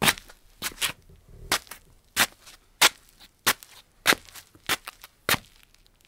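Slippers shuffling on a tile floor: a run of sharp, dry scuffs at a walking pace, roughly one every half second or so.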